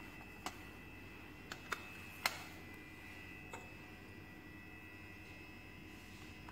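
About five small, sharp clicks and knocks of lab glassware being handled (a flask and petri dishes), the loudest a little past two seconds in. Underneath is a faint, steady high-pitched whine.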